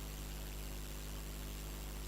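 Steady hiss with a low electrical hum underneath; no distinct events.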